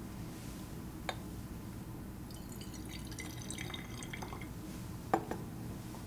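A little lime water splashing and trickling in a glass Erlenmeyer flask, in a short run of small liquid sounds in the middle. A light glass click comes about a second in, and a sharper glass knock about five seconds in.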